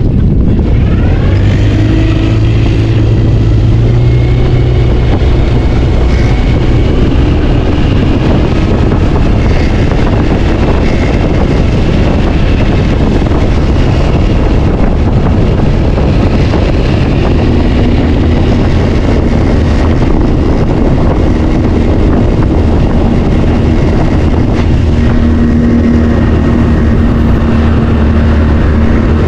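An engine running steadily at speed under a heavy rushing noise, with a low hum that shifts a little in pitch about a third of the way in.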